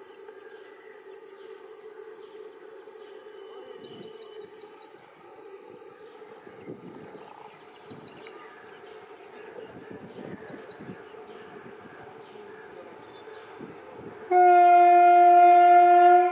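Twin WAG-5 electric locomotives hauling a freight train approach with a steady hum and an irregular rumble of wheels. About 14 seconds in, the locomotive horn sounds one loud, steady blast of about two seconds.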